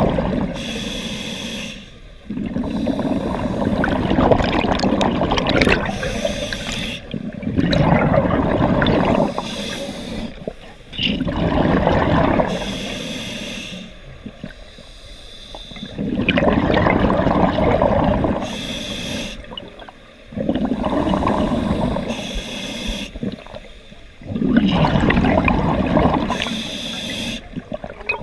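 Scuba diver breathing through a regulator underwater: a short hiss on each inhale, then a longer, louder rush of exhaled bubbles. The breaths are slow and regular, about one every four seconds.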